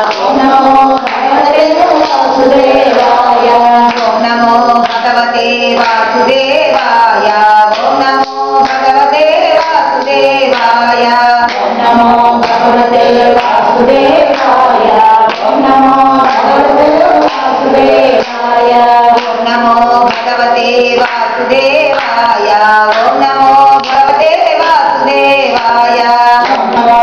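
A mixed group of men and women singing a Hindu devotional chant together in unison, with hand clapping along.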